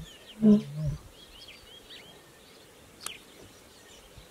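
Male lion giving one short, loud grunt of its roar about half a second in, dropping slightly in pitch. Small birds chirp throughout.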